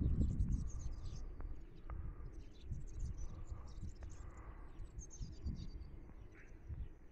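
Small birds chirping and singing in short, scattered phrases over an uneven low rumble that is strongest in the first second and slowly eases off.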